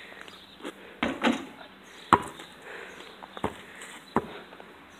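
A few dull knocks and thumps at irregular intervals, the loudest about two seconds in.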